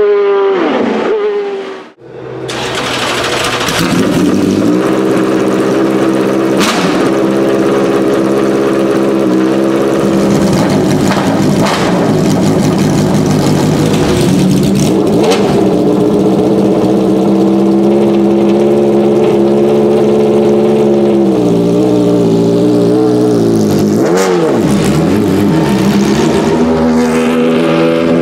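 Ferrari F430 GT2 racing car's 4-litre V8 sweeping in pitch as it passes on track. After a cut, the engine starts up and runs at a steady high idle, with a few sharp exhaust pops and a dip and rise in revs near the end.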